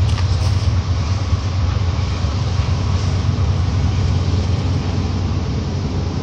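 Steady, loud low rumble of outdoor background noise, with a couple of faint ticks near the start.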